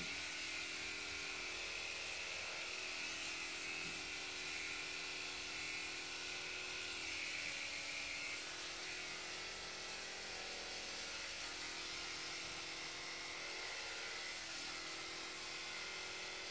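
Electric dog grooming clipper running with a steady, faint buzz, a little weaker from about eight seconds in.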